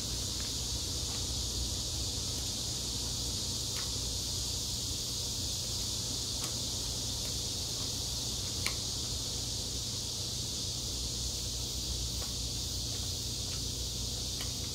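A few small clicks and crackles of a cooked shrimp's shell being peeled apart by hand, over a steady high hiss and a low hum.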